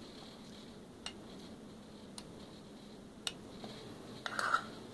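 A metal measuring cup scooping cooked rice from a bowl, making a few light clicks and taps about a second apart, with a short clatter of scooping near the end.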